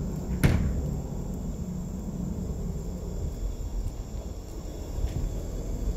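Outdoor ambience: a steady low rumble with a brief whoosh about half a second in.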